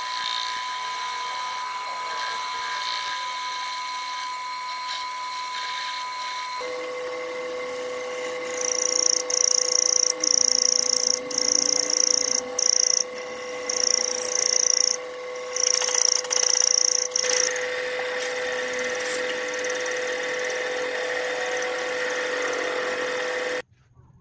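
Metal lathe running under cut, turning down a spinning metal bar, with a steady machine hum. From about a third of the way in, a high-pitched whine from the cutting comes and goes in short bursts for several seconds. The sound stops abruptly just before the end.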